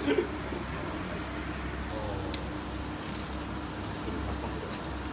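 Steady low hum and rush from a commercial gas yakitori grill with charcoal burning in it, running at medium heat, with a few faint clicks.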